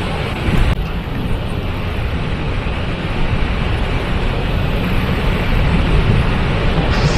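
Waterfall rushing: a loud, steady wash of falling water, heaviest in the low rumble. The higher hiss thins out about a second in and brightens again near the end.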